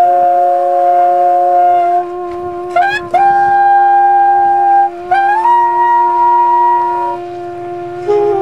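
Trumpet and saxophone playing together in long held notes: one horn sustains a steady low note while the other holds higher notes above it, sliding up into each new note twice.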